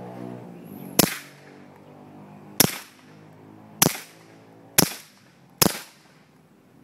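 Semi-automatic pistol fitted with a suppressor firing supersonic ammunition: five sharp shots at uneven intervals of about one to one and a half seconds. Each shot is still a crack, because the supersonic bullet makes a small sonic boom that the suppressor cannot remove.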